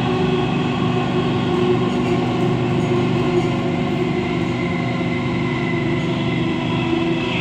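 Delhi Metro train running at speed, heard from inside the coach: a steady rumble of wheels on rail with a constant whine over it.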